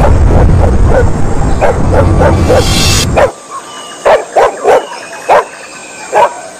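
Several dogs barking in quick succession over a heavy low rumble. The rumble cuts off suddenly about three seconds in, leaving separate barks every half second or so.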